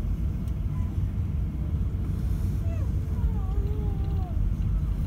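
Steady low rumble in the cabin of an Airbus A380 rolling on the ground before takeoff: the drone of its Rolls-Royce Trent 900 engines at low thrust mixed with wheel and airframe rumble.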